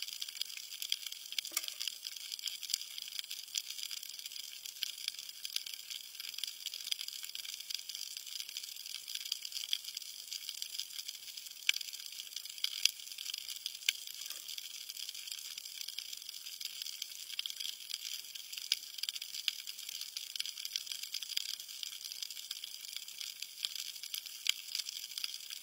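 Underwater crackle of snapping shrimp: a dense, steady patter of tiny clicks, with a few louder single snaps about halfway through.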